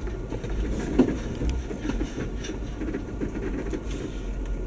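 2019 Jeep Wrangler Unlimited crawling over a rough, muddy trail, heard from inside the cab: a steady low drone with the crackle and rattle of tyres and body over uneven ground, and a single sharp knock about a second in.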